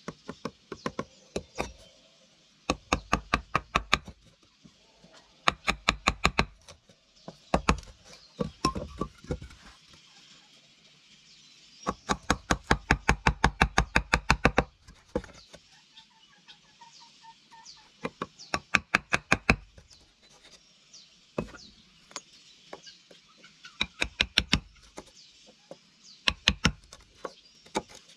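Hammer blows on wood in quick bursts of several strikes, about five a second, with short pauses between the bursts.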